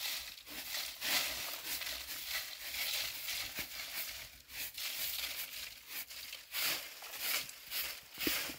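Dry leaves and grass crunching and rustling underfoot in a quick, irregular crackle.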